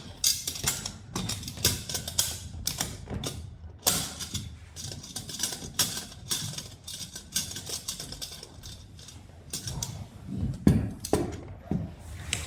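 Metal pool-light parts being handled as a clamp band is fitted around the glass lens and face ring: irregular clicks, clinks and scrapes, with a few heavier knocks near the end.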